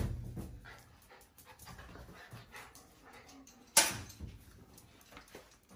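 A dog barks once, short and sharp, a little under four seconds in.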